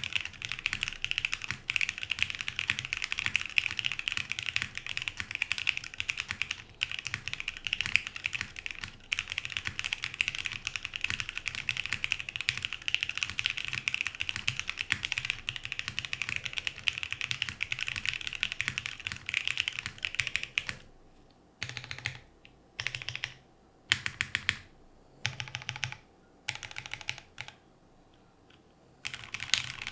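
Mechanical keyboard typing: a top-mounted Monokei x TGR 910 v2 ME with a polycarbonate plate, lubed OPBlack linear switches and PBT keycaps, giving soft, muted keystrokes in a fast continuous run. About 21 seconds in, the steady typing stops and gives way to short separate bursts of key presses on the modifier keys, with quiet gaps between them.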